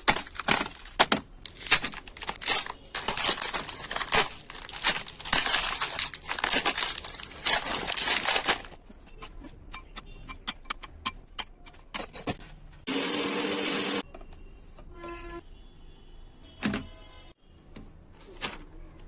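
A plastic packet crinkling and tearing, with many sharp crackles, for about nine seconds. Quieter scattered handling clicks follow, and a steady pitched sound lasts about a second, some thirteen seconds in.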